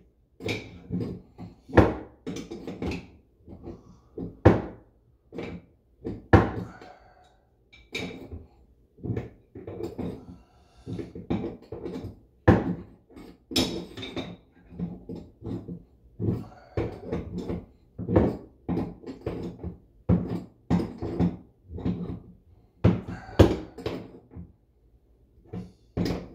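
Irregular clicks and knocks, at times several a second, of a bidet's water-supply hose being hand-threaded and turned onto the toilet tank's plastic fill-valve thread.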